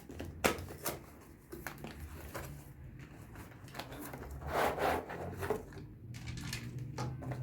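Close handling sounds from small objects or craft materials: scattered light taps and clicks, with a longer rustle about four and a half seconds in, over a low steady hum.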